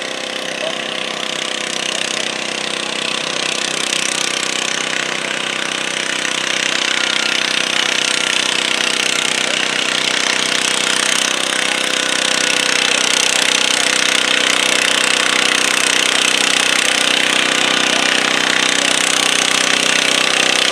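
Stock garden tractor engine running hard under load as it drags a weighted stoneboat sled, with the sled's blade scraping through the dirt. The steady, rough engine note grows gradually louder through the pull.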